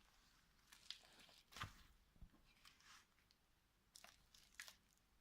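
Faint rustling and crinkling of packaging being handled, with a few short, soft crackles spread through.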